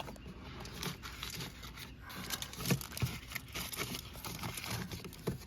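Aluminium foil crinkling and rustling as it is pressed and shaped into place, with scattered small clicks and a knock.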